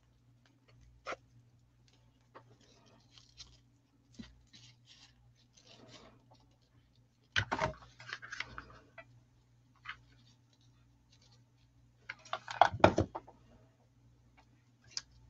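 Crumpled green crinkled ribbon handled and pressed onto a faux pumpkin, with scattered small rustles and clicks and two louder bursts of crinkling, about seven seconds in and about twelve seconds in. A faint steady hum lies underneath.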